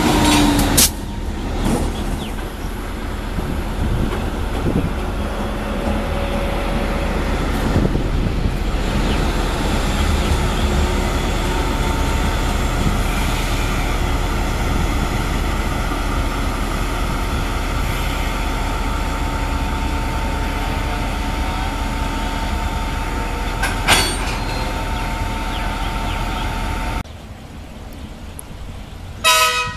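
CSR SDA3 diesel locomotives running past at close range, a loud steady engine drone with a sharp metallic knock about 24 seconds in. Near the end the sound drops away and a brief horn sounds.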